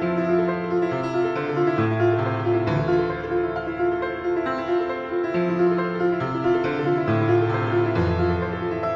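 Background music led by piano, a repeating note held over bass notes that change about once a second.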